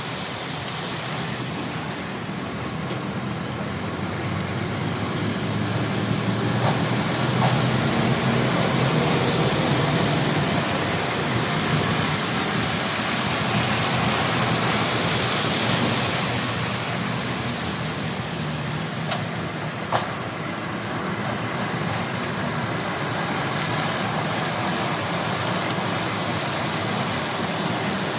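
Diesel articulated lorries driving slowly past one after another, engines running and tyres on wet tarmac. The engine sound swells as one lorry passes close through the middle stretch, and a single sharp knock comes about two-thirds of the way in.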